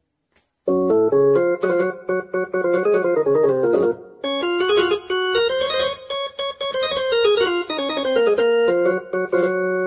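Casio CTK-2550 portable electronic keyboard sounding one of its built-in tones. After a short silence, a quick run of held notes plays over a steady low note, climbing higher around the middle and coming back down.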